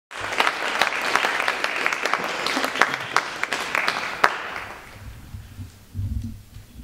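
Audience applauding as the performers take the stage; the clapping dies away about four to five seconds in, leaving a few soft low thumps near the end.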